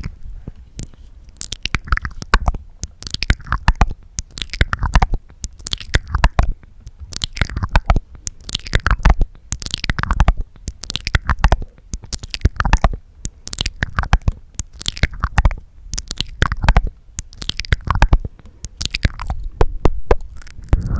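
Close-miked wet mouth sounds: tongue clicks and lip smacks coming in quick clusters about once a second, many with short downward-sliding squelches.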